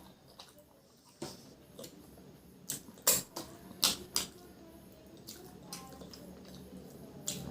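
Close-miked eating sounds: wet mouth clicks and smacks while chewing rice and chicken curry, a handful of sharp ones, loudest around three and four seconds in.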